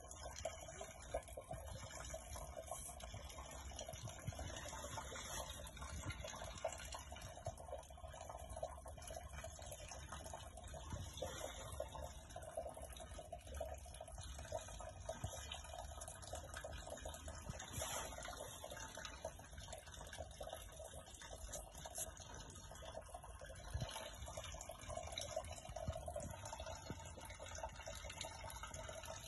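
Faint, steady sound of running water trickling.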